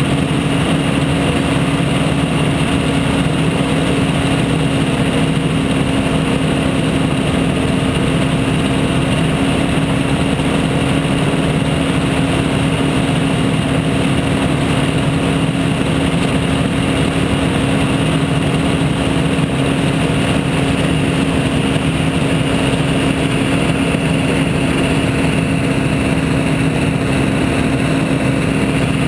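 Weight-shift microlight trike's engine and propeller running steadily at low power during warm-up, heard loud and close from the trike's own airframe.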